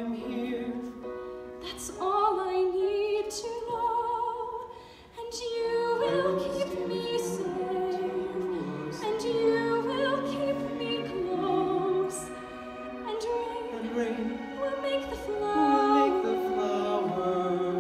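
Live orchestra with strings accompanying operatic singing: a woman singing with wide vibrato, at times joined by another voice.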